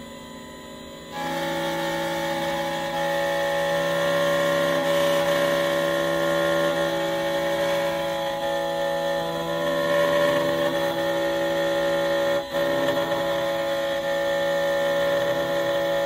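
Xhorse Condor XC-Mini Plus automatic key cutting machine cutting a Honda key by code: after about a second of quieter motor hum, the cutter spindle starts up and runs steadily, whining as it mills the cuts into the key blade, with one brief drop about twelve seconds in.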